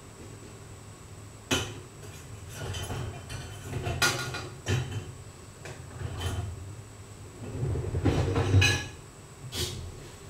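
Irregular knocking and clattering of dishes and cupboard doors being handled, with about six sharper clicks spread through it and low rumbling between them.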